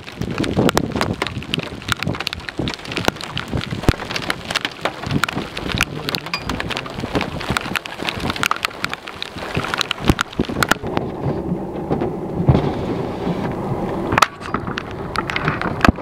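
Rain hitting a car's roof and windows, heard from inside the car as a dense run of sharp taps. About eleven seconds in the taps thin out, leaving a lower steady rush, and a few louder taps return near the end.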